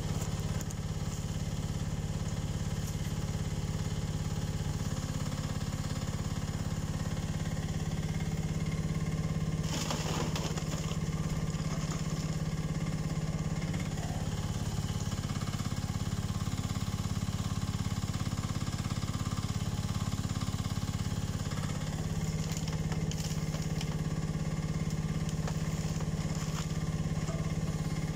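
Carter CT10 mini excavator's engine running steadily as the boom and bucket work gravel. A brief rasping burst comes about ten seconds in, with a few smaller ones later.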